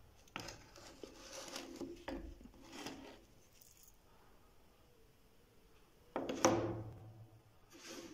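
Plastic juicer housing being handled: light knocks, clicks and scraping of the plastic shell, with the loudest knock about six seconds in.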